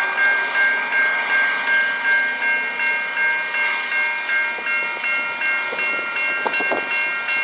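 Two electronic level-crossing bells, a Safetran Type 3 e-bell and a Western Cullen Hayes e-bell, ringing together in a steady, repeating dinging of about two strokes a second. They are sounding the warning for an approaching train.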